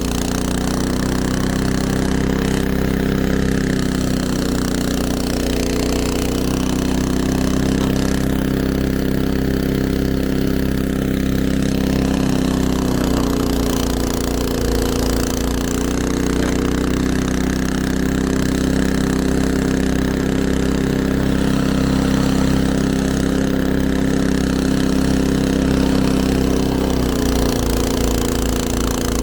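Snowblower's small gasoline engine running steadily, its pitch dipping briefly a few times.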